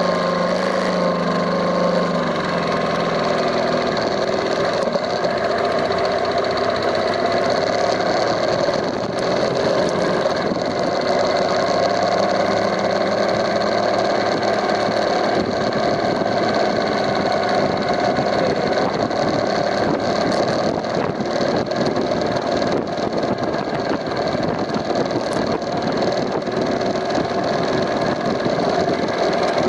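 2015 BMW R1200GS LC's boxer twin engine idling, with an abnormal noise coming from the cylinder head. A part first blamed for the noise has been replaced without curing it.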